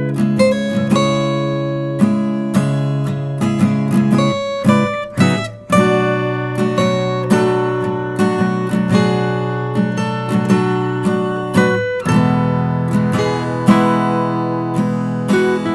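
Background music: an acoustic guitar strumming chords in a steady rhythm, the chord changing a few times.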